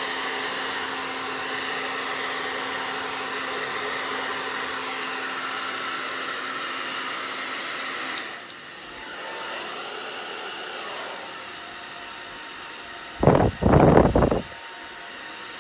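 Handheld hair dryer blowing steadily with a low motor hum, switched off about eight seconds in. Near the end comes a brief cluster of loud low thuds.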